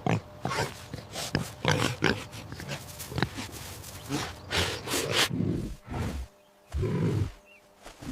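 Recorded animal calls: a series of short, irregular calls with brief pauses between them.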